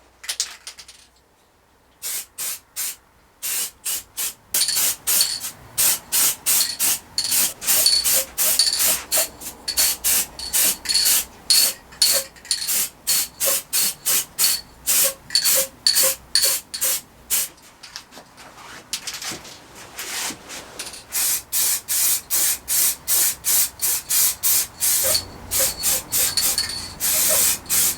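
Aerosol spray paint can spraying in many short bursts, about one or two a second, each with a faint high whistle. This is a coat of paint being laid on by hand, and the bursts start about two seconds in.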